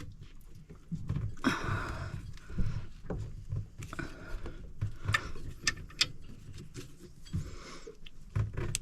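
A rubber coolant hose being worked by hand onto a marine inboard engine's raw water pump fitting: irregular knocks, clicks and rubbing as it is pushed and twisted on.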